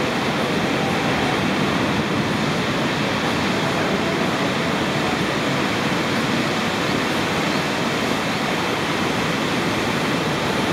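Ocean surf: waves breaking and whitewater washing toward the beach, a steady even hiss of water with no distinct single crashes.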